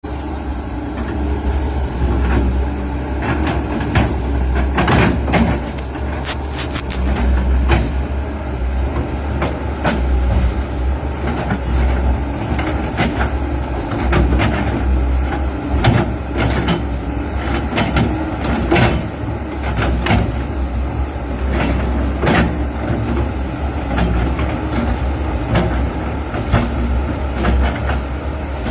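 Excavator's diesel engine running steadily with a deep rumble, and sharp knocks and clanks every second or two as the machine works the ground.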